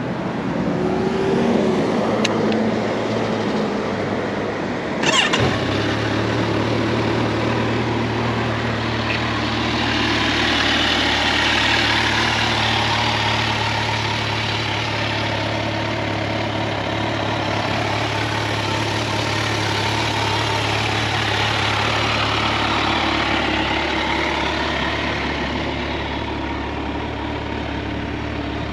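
Kawasaki Versys 1000 LT's inline-four engine starting about five seconds in with a short sharp burst, then idling steadily.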